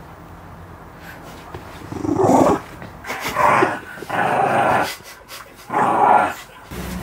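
Dog growling and barking in play while tugging at a plush toy, in four bursts of half a second to a second each.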